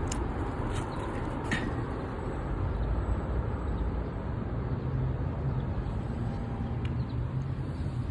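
Steady low outdoor rumble, with a few faint clicks in the first second and a half and one near the end.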